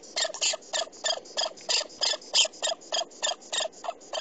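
Norwegian lemming giving a fast, unbroken series of short, harsh squeaking calls, about four a second. These are the defensive calls of a disturbed, cornered lemming.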